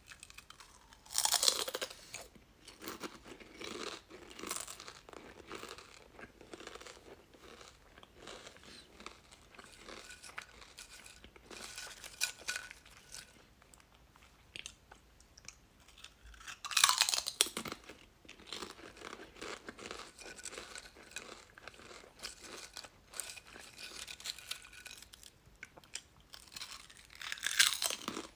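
Crunchy chips being bitten and chewed: three loud crunching bites, about a second in, a little past halfway and near the end, with softer crackling chewing between them.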